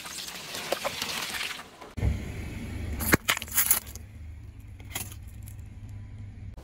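A car tyre rolling slowly over soft things and crushing them: first a block of green slime, then a row of filled food sachets that burst with a few sharp pops, over the car's low steady rumble.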